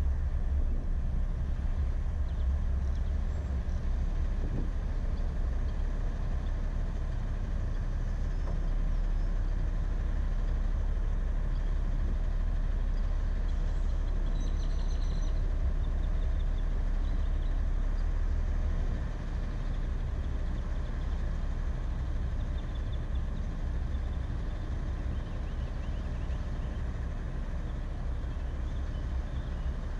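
Low, steady rumble of a car rolling slowly and then idling in traffic, heard from inside the car; it eases slightly about two-thirds of the way through.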